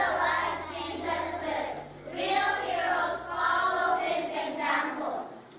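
A group of children singing in unison, two phrases with a short break about two seconds in.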